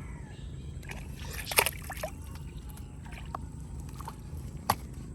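Water sloshing and gurgling, with a few short, sharp splashes or clicks; the loudest comes about one and a half seconds in and another near the end.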